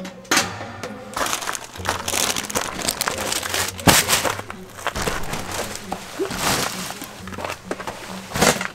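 Clear plastic packaging crinkling and rustling in repeated bursts as plastic-wrapped bedding is handled and shifted.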